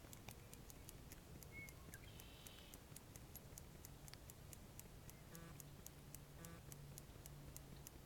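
Faint, even ticking from a fishing reel being cranked during a slow retrieve, about four to five ticks a second, with a couple of faint high chirps in the first few seconds.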